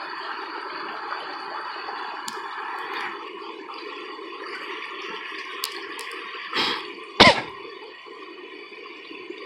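Steady rush of flowing creek water by a waterfall, with two brief louder noises about two-thirds of the way through, the second the loudest.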